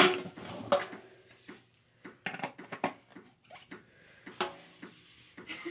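Plastic packaging rustling and crinkling in short, irregular bursts, with a few light knocks, as a plastic popcorn bucket is handled and pulled out of its bag.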